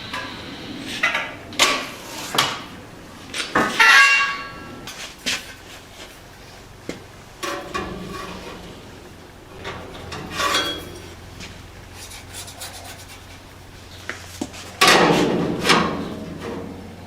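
Sheet-steel repair panel being handled and knocked into place against a car's inner wheel arch: irregular clanks and knocks, one about four seconds in ringing on with a metallic tone, and a louder rough clatter near the end.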